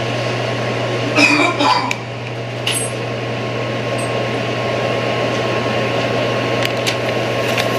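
Steady electrical hum over a constant hiss, with a brief muffled voice about a second in and a few light clicks later.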